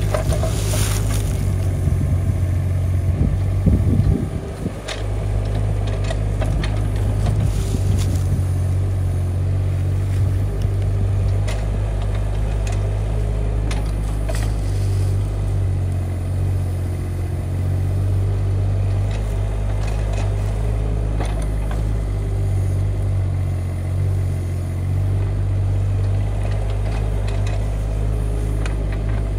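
Kubota D902 three-cylinder diesel of a mini excavator running steadily while it digs, with scattered clicks and scrapes as the bucket works into the soil.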